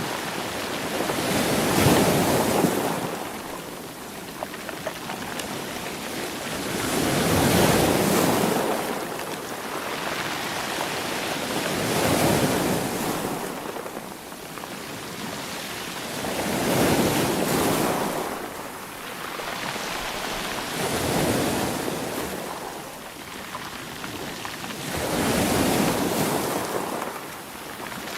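Ocean surf: waves breaking in slow, regular surges, six of them, one every four to five seconds, with a softer wash of water between.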